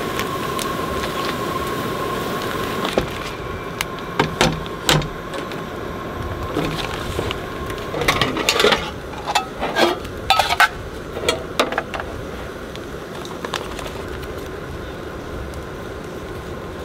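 Portable gas stove burner hissing steadily under a foil-covered pan, with crinkling plastic food packaging and short knocks and clinks of dishes and containers being handled, most of them in the middle of the stretch.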